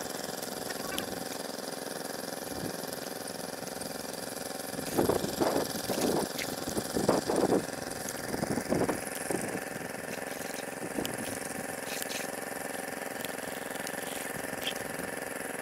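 A small engine running steadily at a constant speed, with a few brief louder bursts about five to nine seconds in.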